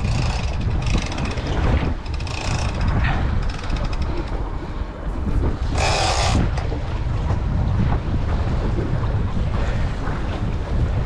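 Wind buffeting the microphone in a steady low rumble over the open sea, with a short, bright hiss about six seconds in.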